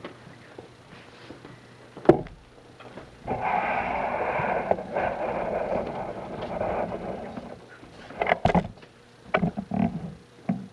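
Rustling and shuffling of a crowd pressed close together, clothing brushing, with a sharp knock about two seconds in, a longer stretch of rustling in the middle and a few small knocks near the end.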